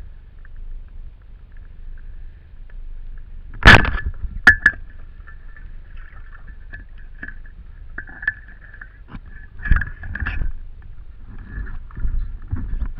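Speargun firing underwater: one loud sharp crack, then two quicker clacks as the shaft and line run out. After that come scattered knocks and clicks against a low water rumble.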